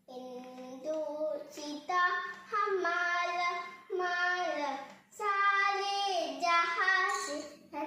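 A young boy singing alone with no accompaniment, long held notes that slide between pitches, in phrases broken by short pauses.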